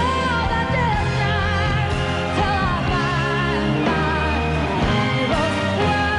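Live band playing a pop ballad, with a melody line held and wavering in vibrato and gliding between notes above the accompaniment.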